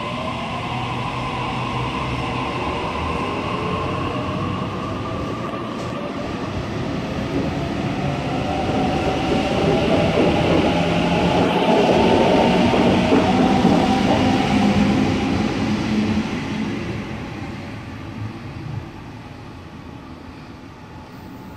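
Sydney Trains double-deck electric train pulling out of the platform and accelerating away, its traction motors giving a whine that rises in pitch. The running noise builds to its loudest about halfway through, then fades as the train draws off.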